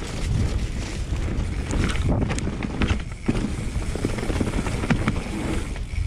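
Mountain bike rolling downhill on a dirt trail: wind rushing over the microphone, tyres running over dirt and fallen leaves, and frequent short clicks and rattles from the bike over the bumps.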